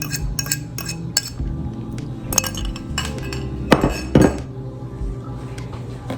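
A utensil clinking against a bowl as eggs and cream are mixed, in quick ticks at first and then more scattered, with two louder clatters about four seconds in.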